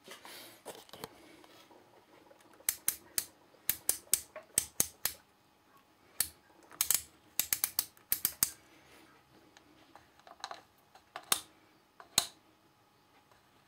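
Front-panel rotary selector switch of a Telequipment D61 oscilloscope being turned through its positions, clicking sharply from detent to detent in quick runs, with a few single clicks near the end.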